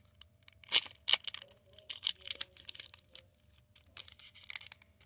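Foil booster pack wrapper crinkling and tearing open by hand, a run of sharp crackles that is loudest about a second in, with more crinkling near the end.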